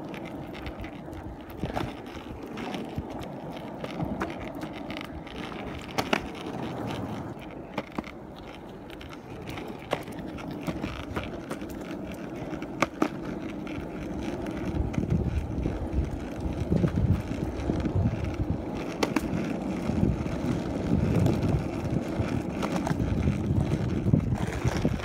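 Longboard wheels rolling over rough concrete: a steady rumble with scattered sharp clicks every second or two, getting louder in the second half.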